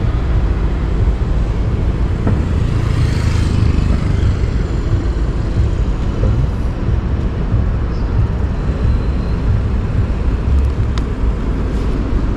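Steady low rumble of road vehicles, with a brief hiss about three seconds in.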